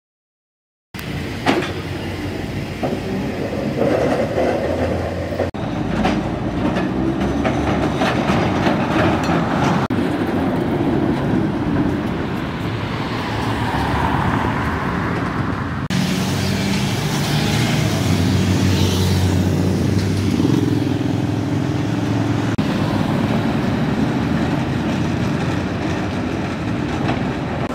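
Vintage electric tram running on street track, close by: a steady rumble of steel wheels on the rails with a traction-motor hum. It starts about a second in and changes abruptly twice.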